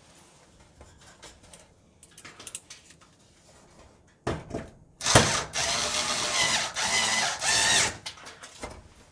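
Cordless drill driving screws into the sheet-metal back panel of a gas range: light handling clicks, a short burst about four seconds in, then a longer run of about three seconds with a brief pause partway through.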